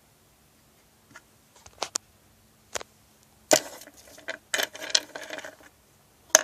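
Small hard plastic clicks and rattles from Lego pieces and their plastic storage being handled: a few single clicks, then a burst of clattering near the middle, and a last sharp click at the end.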